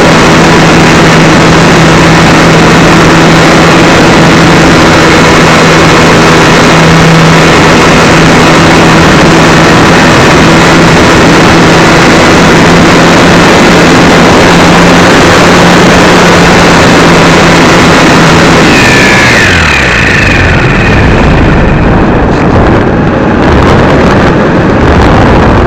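The electric motor and propeller of an RC Super Cub LP, picked up by the camera on board, running with a steady hum. About 19 s in the hum breaks off with a short falling whine, and wind buffeting the microphone takes over as the plane moves off across the grass.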